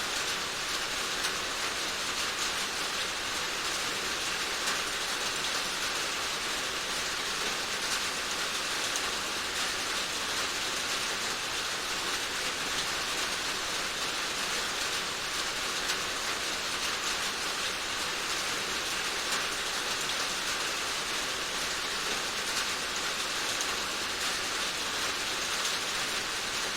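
Steady rainfall, an even hiss of rain with fine drop patter.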